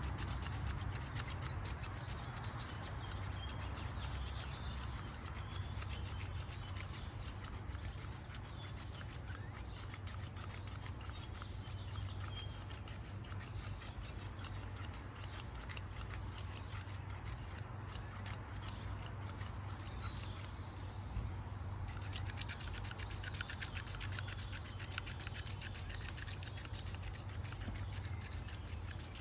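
A shaker of pecan BBQ rub being shaken over chicken thighs: a fast, continuous patter of fine clicks over a steady low hum.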